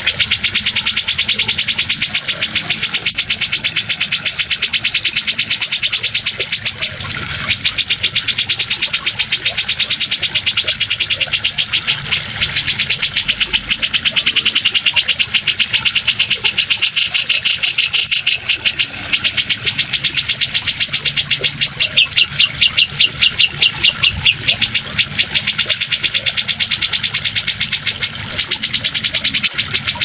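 Cucak jenggot (grey-cheeked bulbul) song: a fast, almost unbroken high chattering with only brief dips, mixed over a low, steady rush of running water.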